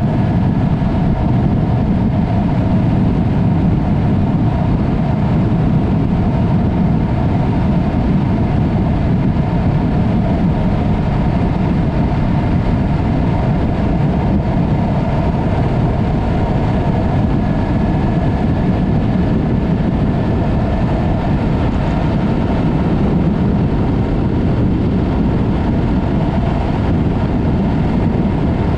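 Yamaha MT-03 motorcycle with a Mivv exhaust riding at a steady speed: the engine runs evenly with no revving, mixed with a steady rush of wind noise.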